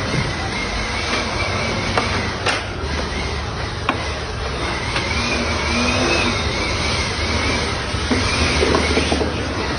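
Edon 80-litre wet-and-dry vacuum cleaner running steadily with a faintly wavering whine, and a few sharp clicks.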